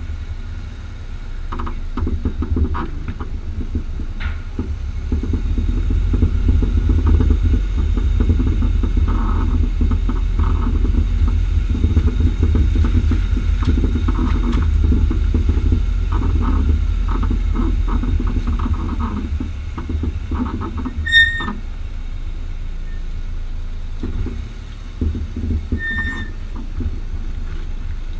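Renault Megane III on the move with a steady low road rumble and scattered knocks, then two short high squeaks, about three-quarters of the way through and near the end. The sounds come from the front-right coilover (Bilstein PSS9 damper with H&R springs), which pops over road bumps and squeaks when the wheel is turned, a fault that has come back after two repairs and whose cause the owner does not know.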